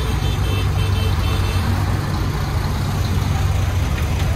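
Heavy diesel engine running steadily, a deep even drone with no change in speed.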